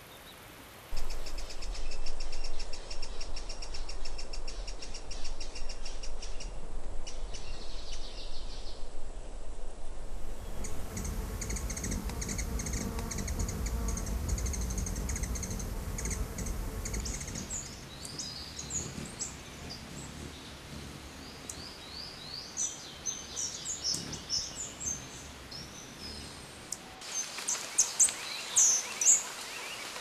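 Hummingbird calls: about a second in, a fast run of high, dry ticks begins. From about ten seconds in come sharp, squeaky chips and short sweeping notes, which grow louder and more spaced near the end. A steady background hiss and low rumble lies under the calls.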